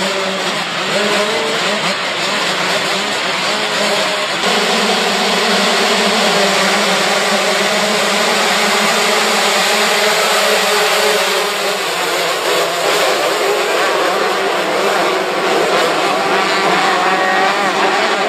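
Several motocross motorcycle engines running hard and revving, their overlapping notes rising and falling as the riders work the throttle and shift.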